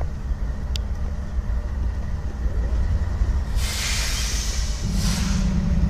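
Diesel-electric freight locomotives, a UP SD70M and an NS C44-9W, idling at a standstill with a steady low engine rumble that grows stronger near the end. Two brief bursts of hiss come through about three and a half and five seconds in.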